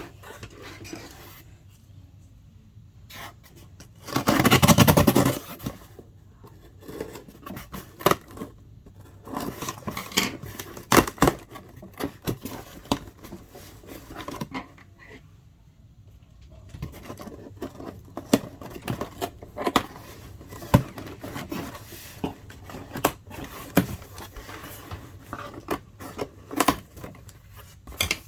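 A package being unboxed by hand: packaging scraping and rustling, with one loud noisy rip lasting about a second and a half about four seconds in. Scattered sharp clicks and taps follow as the contents are handled.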